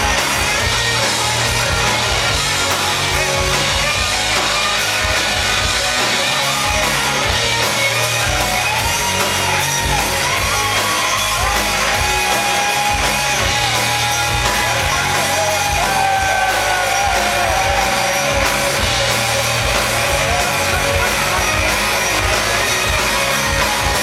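Live rock band playing loud: electric guitars, bass and drums together, with a wavering melody line over them through the middle.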